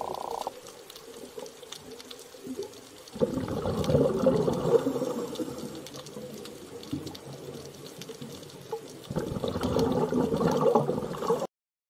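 Underwater bubbling in two bursts of a few seconds each, about six seconds apart, after a steady hum that stops half a second in; the sound cuts off suddenly near the end.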